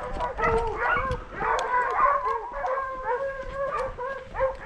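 A pack of boar-hunting dogs baying together, with many overlapping, howling calls that keep going without a break.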